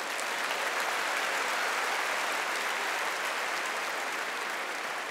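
Large audience applauding, swelling in the first second and slowly dying away toward the end.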